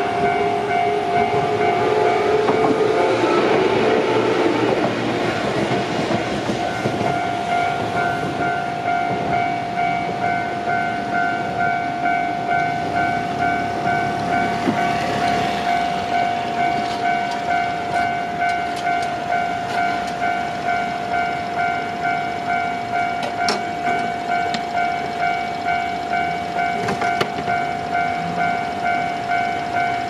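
Japanese level-crossing electronic warning bell ringing in a steady, evenly repeating ding. Over the first few seconds an electric train runs past, its rumble fading away by about five seconds in.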